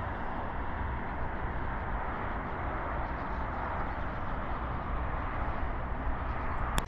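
Steady outdoor background noise: an even hiss with a low, unsteady rumble beneath it, and one short click near the end.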